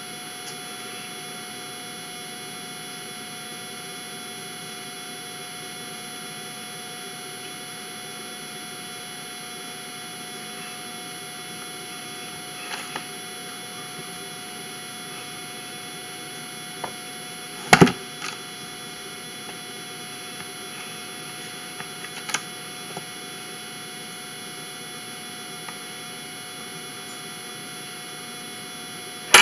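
Steady electrical hum with fixed whining tones, broken by a few soft knocks and one sharper knock about two-thirds of the way through.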